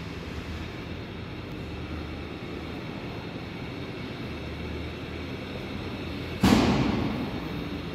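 Steady low mechanical drone, broken about six and a half seconds in by a sudden loud blast of escaping compressed air from a locomotive's air system, which fades out over about a second.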